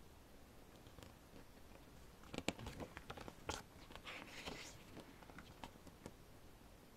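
Pages of an album photo book being handled and turned: a few short paper clicks and a brief rustle, bunched around the middle, over faint room tone.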